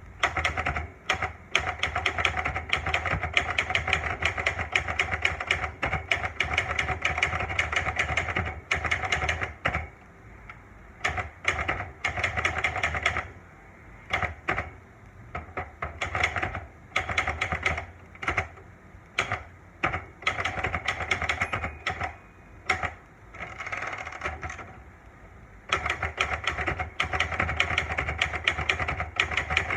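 Olivetti Lettera manual portable typewriter being typed on: fast runs of clacking keystrokes in bursts, broken by several short pauses.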